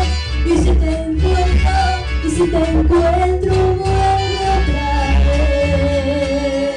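A woman singing into a microphone over a recorded backing track with guitar, played through a PA loudspeaker; she holds long notes with a wavering pitch, the last one near the end.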